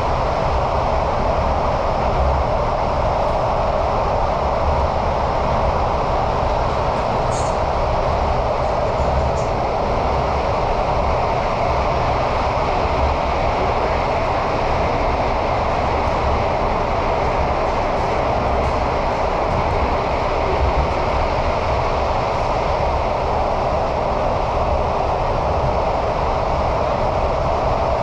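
Steady running noise of an MRT subway train heard from inside the carriage: a continuous rumble and rush from the wheels and tunnel, holding an even level throughout.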